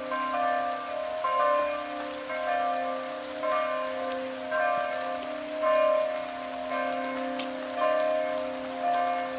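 Several church bells ringing together in a steady peal, strokes at different pitches overlapping about twice a second, with rain hissing steadily underneath.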